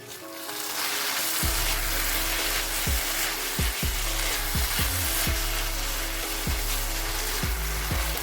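Food frying in a hot pan, a steady sizzle that builds up within the first second.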